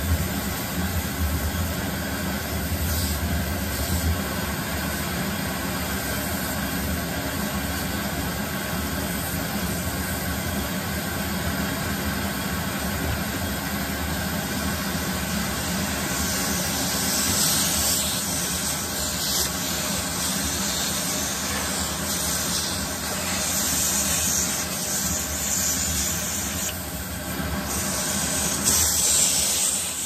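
Vacuum cleaner running steadily, its nozzle sucking at a doll's long synthetic hair. About halfway through, the airflow hiss turns brighter and uneven as hair is drawn into the nozzle.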